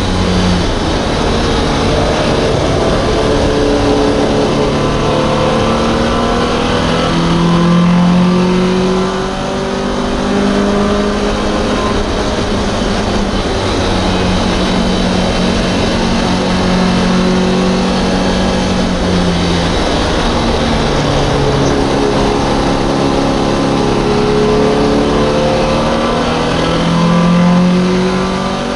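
MGB race car's 1.8-litre B-series four-cylinder engine at racing revs, heard from inside the car. The revs climb, ease off about nine seconds in, hold steady, drop about twenty seconds in, then climb again to a peak before a sudden drop at the end.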